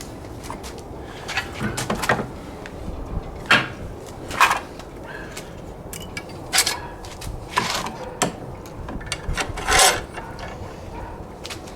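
Irregular knocks, taps and scrapes of wood being handled, with a steady background hiss.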